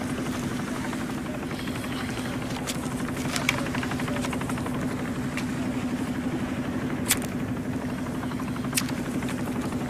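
A motor running steadily: a low hum with a fast, even pulse. A few sharp clicks are scattered through it.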